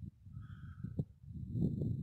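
Faint, irregular low rustling and scuffing from a hiker moving on a gravel desert trail and handling the camera, with a single click about a second in.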